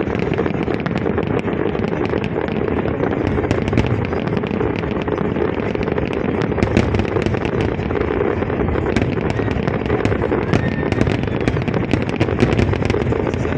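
Fireworks display going off without pause: a dense, steady rumble of bursts with many sharp crackling pops through it.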